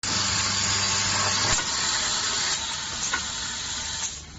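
Steady hiss of an air jet on an industrial sewing machine, the blown air that carries the fabric through, over a low electric hum that cuts off about one and a half seconds in. The hiss goes on a little quieter afterwards and fades near the end.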